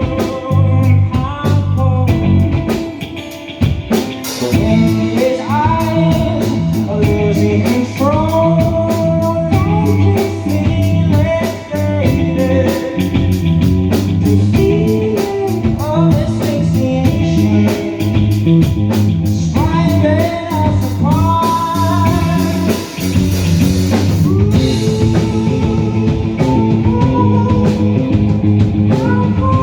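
Live rock band performance: a male lead vocalist sings over electric guitar and a drum kit.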